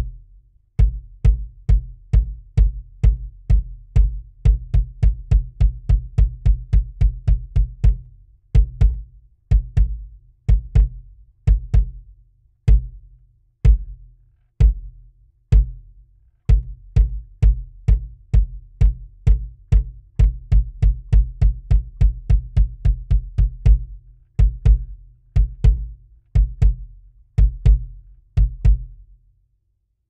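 Tama wood beater on a bass drum pedal striking a 20-inch Gretsch Catalina maple bass drum with a Remo PowerSonic head. Each stroke is a deep thud with a sharp click on top. Single and paired kicks alternate with quick even runs of about four strokes a second, and the playing stops shortly before the end.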